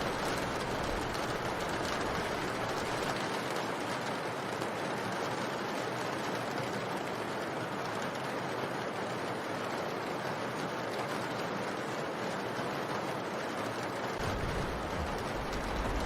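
Steady rain, a continuous even hiss without distinct sounds standing out. A low rumble creeps in near the end.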